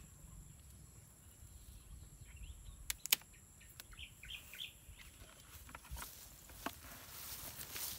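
Hand pruning shears snipping twice, sharply, through a dragon fruit's stem about three seconds in. A few short bird chirps follow. Later come a couple of soft knocks as the fruit goes into a plastic bucket, and a rustle of grass near the end.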